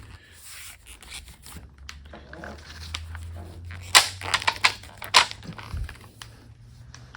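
Leather tsuka being yanked and worked off the bamboo slats of a shinai by hand, with rubbing and a cluster of sharp clacks of the bamboo a little past halfway, alongside short strained vocal noises of effort.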